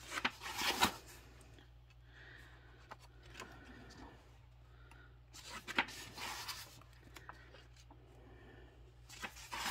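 Coloring book pages being turned by hand: three papery rustles, one near the start, one about halfway through and one near the end.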